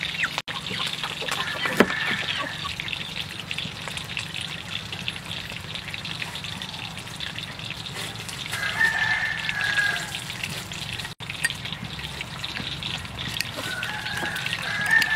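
Metal spoon stirring and clicking against a ceramic bowl of salt and pepper, with lime juice dripping in midway. Chickens cluck in the background about nine seconds in and again near the end.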